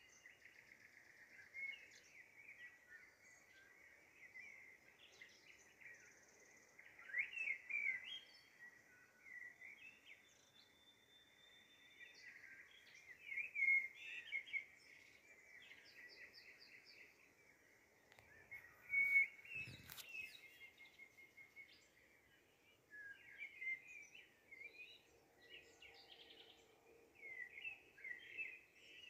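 Faint birdsong: many overlapping short chirps, sweeping notes and trills. A single soft knock with a low thump comes a little before twenty seconds in.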